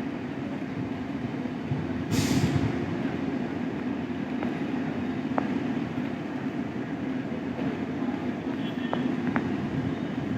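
Vande Bharat Express electric trainset running at a station: a steady low rumble with a few faint clicks. A short burst of hissing comes about two seconds in.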